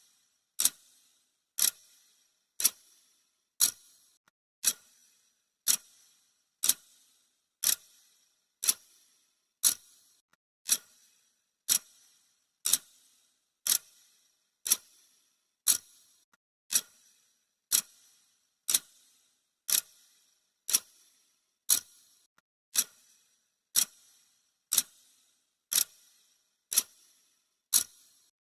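Clock ticking sound effect: a sharp, steady tick once a second, marking off the countdown seconds.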